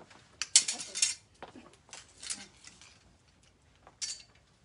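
Light clinks and rustling of clothes on hangers being handled. The loudest part is a clattering burst about half a second in, with a shorter one near the end.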